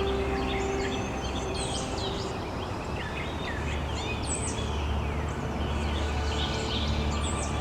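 Many small birds chirping and singing at once, with many short overlapping calls, over a steady low rumble.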